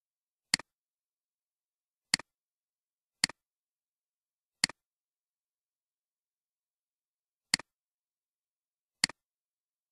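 Computer mouse clicks, six in all at uneven intervals, each a sharp press followed at once by a softer release, with dead silence between them.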